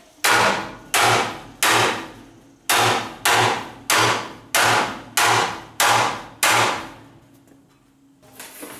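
Ten ringing hammer blows on the steel frame horn of a 1964 Chevrolet Impala wagon's frame, struck at a steady pace of about one every two-thirds of a second, then stopping.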